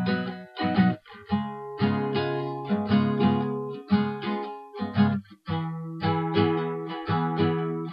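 Background music: plucked acoustic guitar playing a run of chords, each struck and left to ring out.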